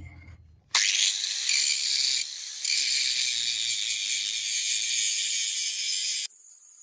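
Angle grinder with an abrasive disc grinding the edge of a steel axe head: a loud, steady, high hiss that starts about a second in, dips briefly twice, and cuts off abruptly near the end.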